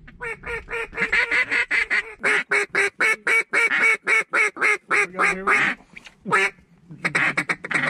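Hand-held duck calls blown in a rapid run of loud quacks, several a second, with a short break about six seconds in before the calling starts again.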